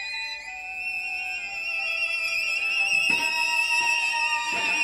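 String quartet playing contemporary classical music: high, held bowed notes that slide in pitch, steadily growing louder, with a wide vibrato on a high note from about halfway.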